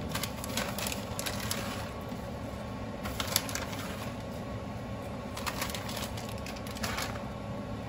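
A kitchen utensil clicking and scraping against a cooking pan in a few short spells while parmesan is stirred into a simmering cream sauce, over a steady background hiss.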